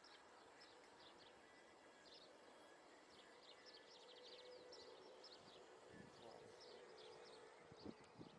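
Faint outdoor ambience of many small birds chirping in quick, high calls, with a few soft knocks near the end.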